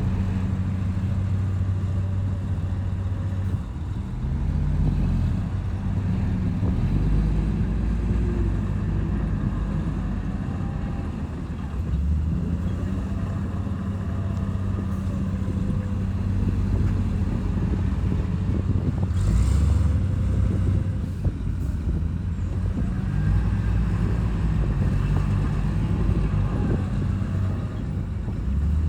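Heavy diesel engine of earthmoving machinery running under load, its pitch rising and falling several times as the load changes. A brief hiss comes about two-thirds of the way through.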